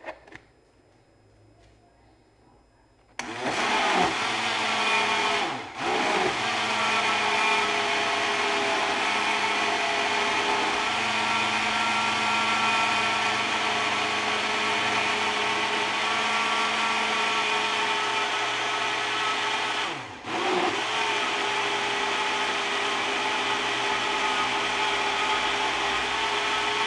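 Countertop blender running, blending a creamy mousse mixture of yogurt, condensed milk and cream. It starts about three seconds in, runs steadily, and cuts out briefly twice before starting again.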